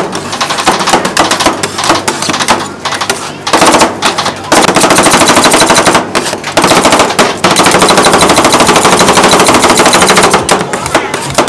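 Metal spatulas chopping and scraping rapidly on a chilled steel ice-cream plate, a fast rattling clatter of many taps a second. It starts as scattered taps, turns dense and very loud after a few seconds, breaks off briefly, and eases near the end.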